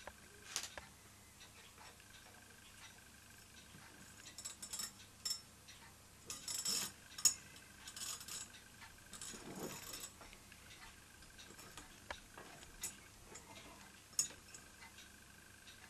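Mamod Showman's Engine toy steam engine running on compressed air instead of steam, giving a faint steady ticking. Several short bursts of hiss and sharper clicks come between about four and ten seconds in.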